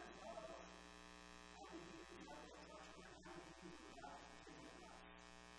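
Faint, steady electrical buzz, with a man's voice faintly heard talking through it.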